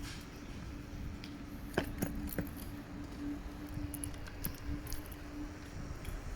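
Kukirin G3 Pro electric scooter in motion: a steady low hum and rumble with a few sharp metallic clicks about two seconds in and light jingling rattles scattered throughout, the rear brake noise in question.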